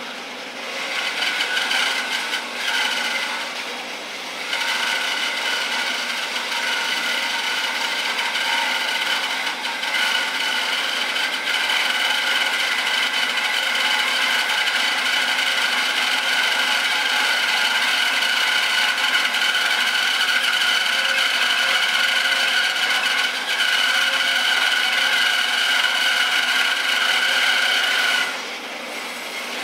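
Bandsaw cutting through a thick block of wood, a steady whine with a rasping cut. It eases briefly a few seconds in and drops near the end as the cut finishes.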